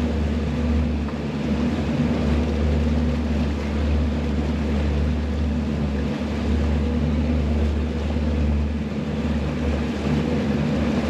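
Twin Mercury Verado 250 hp V8 outboard motors running steadily at trolling speed, a constant low drone with a steady hiss over it.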